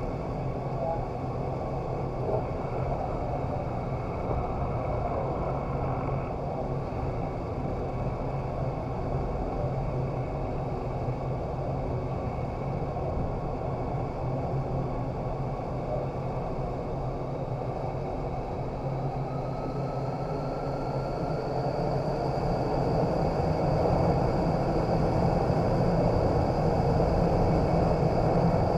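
Indoor vertical wind tunnel running: a steady rush of air through the flight chamber with a faint whine over it. About two-thirds of the way through, the whine rises in pitch and the rush grows louder.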